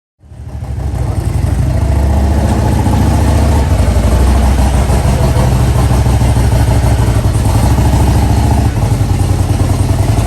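A vehicle engine running loud and steady close by, with a rapid low pulsing from its firing; it eases off slightly about four seconds in and again near nine seconds.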